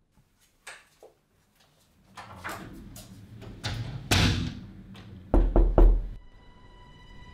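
Three heavy knocks on a door in quick succession, a little over five seconds in, coming after a loud falling whoosh. Two light clicks sound about a second in, and steady eerie music tones begin near the end.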